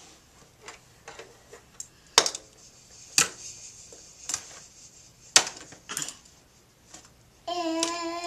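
Plastic toy parts of a baby activity centre clicking and clacking as a toddler handles them: scattered light taps with a few sharper, louder knocks. Near the end a steady held tone begins.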